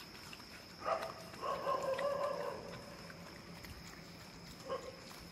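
A dog whines. A short cry comes about a second in, then a longer steady whine of about a second, and another brief cry near the end.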